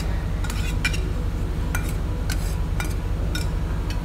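A few light, scattered clinks of a utensil against dishware over a steady low hum.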